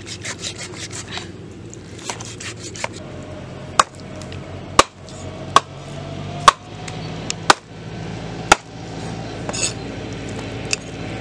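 Meat cleaver chopping cow leg skin on a round wooden chopping block: a run of quick light knife strokes near the start, then about six heavy chops roughly a second apart.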